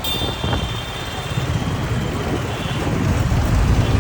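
Street traffic rumble, growing louder toward the end, with a faint high tone in the first second or so.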